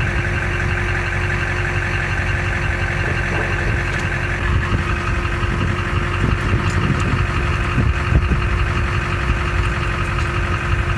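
An engine running steadily at idle, a low rumble with a steady hum over it.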